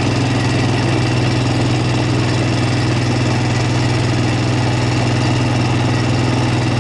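A steady, low engine hum, running at an even idle without change.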